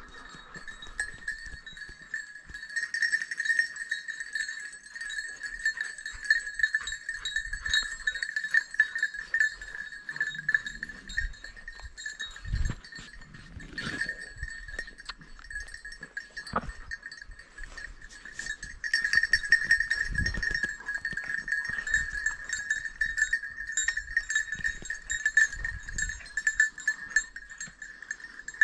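Bells on hunting dogs jangling continuously as the dogs move around and worry a downed wild boar, with a few dull thumps.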